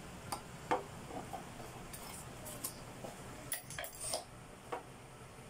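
Handling noise from fitting a children's tricycle handlebar stem into the head tube clamp: a few light, scattered clicks and knocks of metal and plastic parts.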